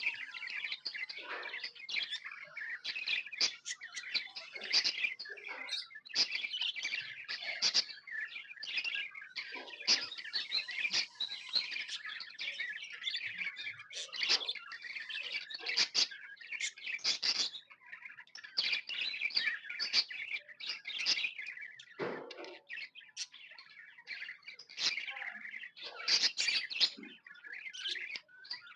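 Several budgerigars chirping and chattering, a dense run of short, high calls with hardly a pause.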